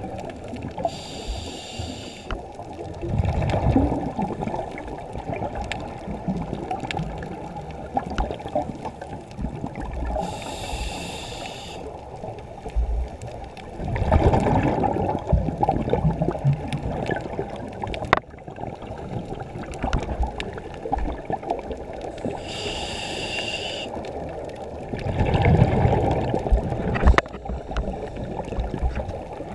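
Scuba diver breathing through a regulator underwater: three times, a short hiss of inhaling is followed by louder bubbling as the breath is exhaled, about every eleven seconds, over a steady low wash of water noise.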